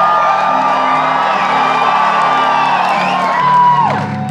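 A concert crowd cheering and whooping over low notes held by the band, which step from one pitch to another. A long high whoop slides down and breaks off near the end.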